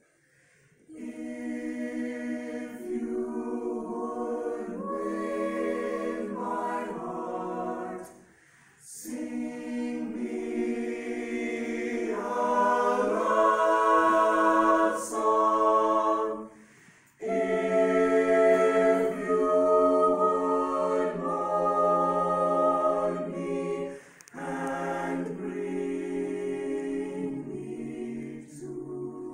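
Mixed-voice high school choir singing unaccompanied, holding full chords in long phrases, each broken by a brief pause for breath, three times in all.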